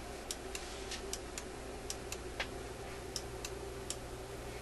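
Light, irregular clicks and ticks, a few a second, from the metal switch linkage of a Seeburg Tormat selector as a fingertip works it forward, over a low steady mains hum.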